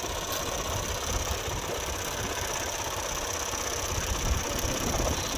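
Diesel farm engine idling steadily with a low rumble.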